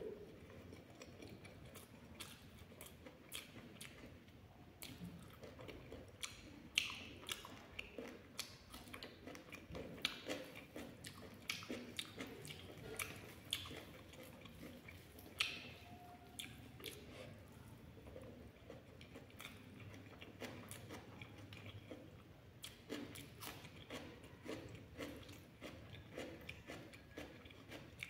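Close-up eating sounds: wet, irregular smacking clicks of chewing, along with fingers mixing soft food on a plate.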